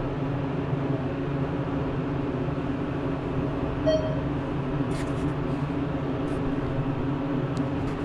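Elevator car running while it travels between floors: a steady hum made of several low tones, with a short electronic beep about four seconds in and a few faint clicks.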